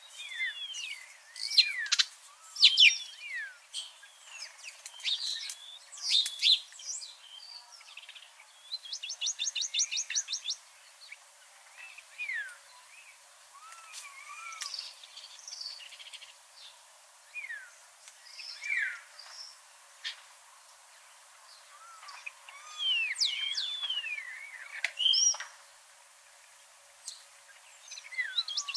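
Songbirds chirping and singing: many short whistled notes that glide up and down, with a fast, even trill about nine seconds in and again near the end.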